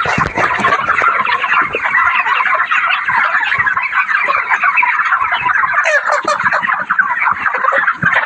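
A large flock of broiler chickens, about 39 days old, calling and clucking all at once in a dense, continuous chatter.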